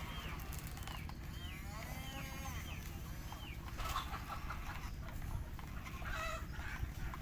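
Birds calling: short rising-and-falling notes repeated about twice a second, over a steady low rumble.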